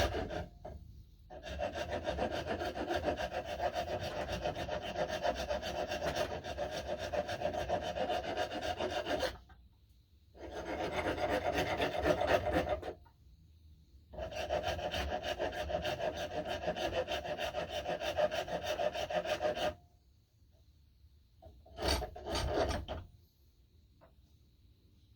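Wooden axe handle being shaped by hand with a rasp: long runs of fast, even rasping strokes, stopping briefly twice, then one short burst near the end.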